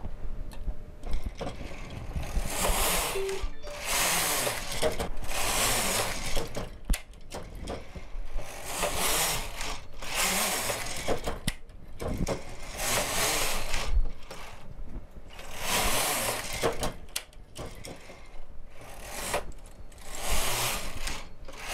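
Knitting machine carriage being pushed back and forth across the needle bed of a single-bed knitting machine, knitting row after row. There are about nine passes, each a rattling slide of about a second, with short pauses between them.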